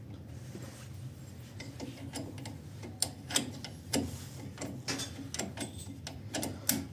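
Socket ratchet clicking in a run of short ticks, starting about two seconds in, as the brake caliper's guide bolt is run in and tightened after a front brake pad change.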